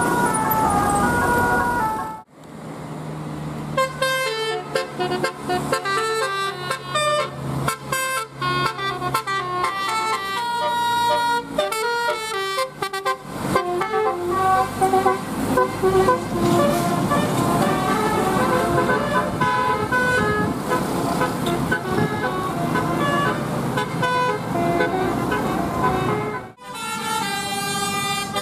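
Telolet multi-tone bus horn playing tunes of quick stepped notes that jump up and down in pitch. The sound cuts out abruptly twice, once about two seconds in and again near the end.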